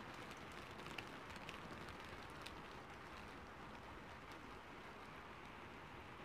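Light rain falling: a faint steady hiss with scattered drop ticks, more of them in the first couple of seconds.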